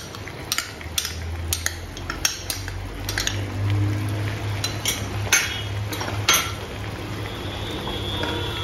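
A spoon knocking and scraping grated cheese out of a glass bowl into a pan, about a dozen sharp clinks against the glass and the pan over the first six seconds. A low steady hum runs beneath.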